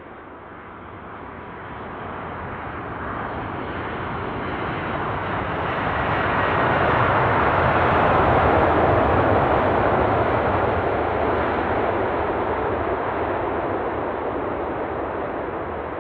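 Boeing 747-400F four-engine jet passing by on its landing, its engine roar swelling to a peak about halfway through and then slowly fading away.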